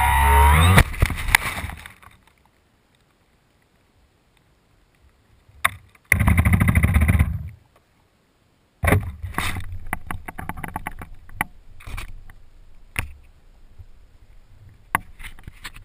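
Electric motor and propeller of a Parkzone Radian RC glider winding down in pitch and stopping, then a few knocks and a scraping noise that fades out as it touches down in grass. After a few seconds of silence comes a short noisy burst, then scattered knocks and rustling of the onboard camera being handled.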